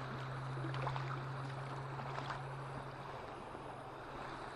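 River water flowing, a steady rush of current around the wading angler, with a low steady hum that fades out about three seconds in.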